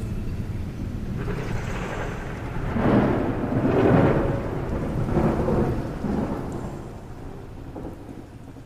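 Rumbling noise like rolling thunder, swelling to its loudest about three and four seconds in, then dying away.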